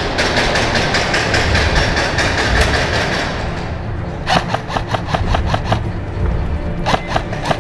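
Airsoft electric gun firing full-auto: a long burst of rapid, evenly spaced shots that stops about three seconds in, then another burst around four and a half seconds, and a short one near the end, each shot a sharp clack over the whir of the gearbox motor.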